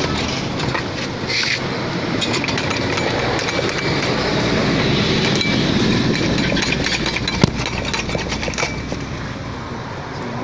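Metal clinks and knocks of a Multicab manual transmission and its subframe being handled on a concrete floor, with one sharp knock about seven seconds in. A steady vehicle rumble runs underneath, swelling in the middle and easing near the end.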